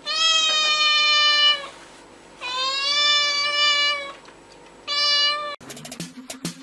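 A cat meowing three times, the first two long and drawn out, the third short. About a second before the end, music with a steady percussive beat cuts in abruptly.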